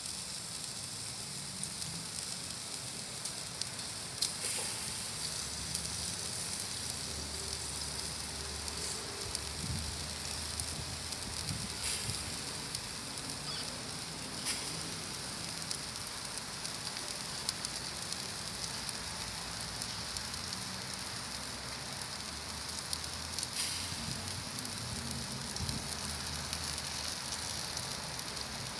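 Bone-in ribeye steak sizzling on a grill grate over hot charcoal: a steady hiss with a few sharp pops and crackles.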